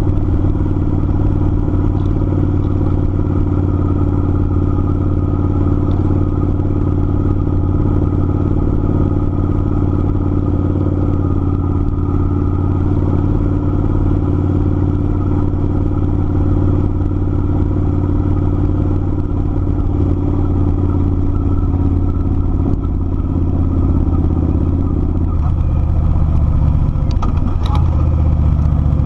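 Kawasaki Vulcan 900's V-twin engine running steadily under way at cruising speed. The engine note changes somewhat near the end.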